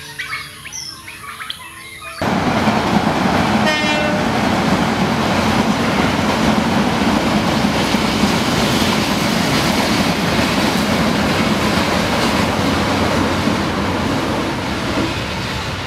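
A passing passenger train, loud and close, with the steady rumble and clatter of its carriages on the rails. It sets in suddenly about two seconds in.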